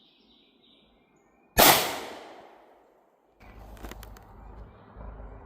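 A single 9mm pistol shot from a Canik MC9 fired into a motorcycle helmet: one sharp crack about a second and a half in, echoing away over the next second and a half. A low rumble with a faint click follows near the end.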